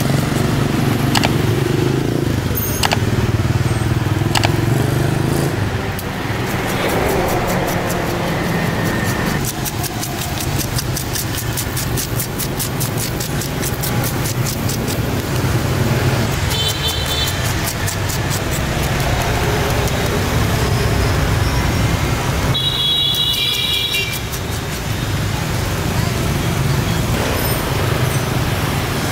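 Street traffic noise: motorbikes and cars running past in a steady rumble, with voices talking in the background and a few sharp clicks.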